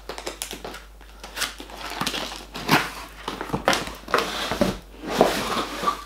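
A large cardboard box being opened by hand: irregular scrapes, rubs and knocks of cardboard as the lid is worked open.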